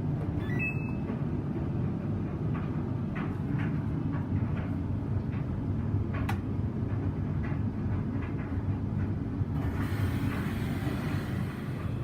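Samsung washing machine running a wash: a steady low rumble from the machine, with scattered light clicks and one sharper tick about six seconds in. Near the end a broad rushing hiss joins the rumble.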